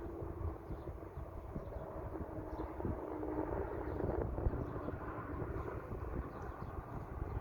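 Steady rumble of distant vehicle noise, with a faint hum that swells about halfway through.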